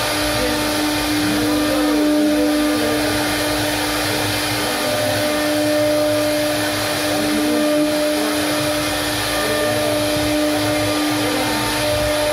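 Wood-carving CNC router running, its spindle motor giving a steady, unchanging hum over an even rushing noise.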